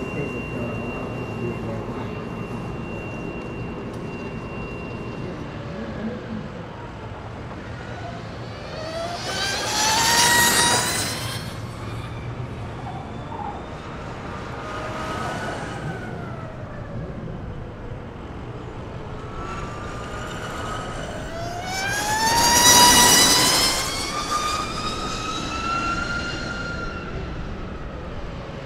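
Electric racing motorcycles passing on track, each a high-pitched motor whine that climbs and then falls in pitch as the bike goes by. Two loud passes come about ten seconds in and again a little past twenty seconds, with a fainter one in between.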